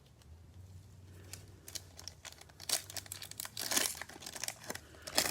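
Foil trading-card pack being torn open and crumpled by hand, with irregular crinkling that starts about a second and a half in and grows louder toward the middle and end.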